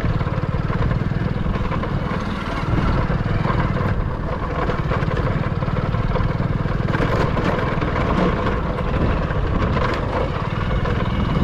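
A vehicle engine running steadily as it moves slowly along a rough dirt track.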